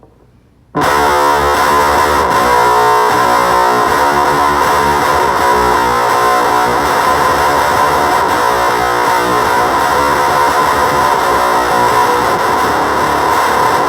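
Guitar played through a Gremlin Machine Shop Avedissian octave fuzz pedal, giving a thick fuzz tone. It starts suddenly just under a second in and keeps going steadily.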